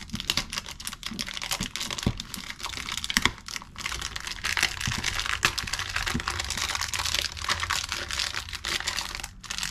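A brand-new MoYu 6x6 speed cube being unwrapped and handled: its plastic wrapper crinkles, and the cube's plastic pieces click and clack in a dense, irregular run, like typing on a keyboard.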